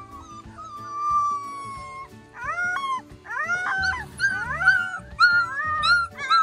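Old English Sheepdog puppies, about four weeks old, whining and yipping. About half a second in comes one long whine that slowly falls in pitch, then a quick run of short, high, rising yelps from several puppies over each other. Background music plays underneath.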